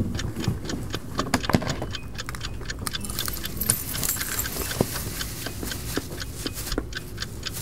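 A clock ticking steadily, overlaid with crinkling and rustling of disposable wrappers being handled and thrown away, and a few scattered knocks; the crinkling is strongest a few seconds in.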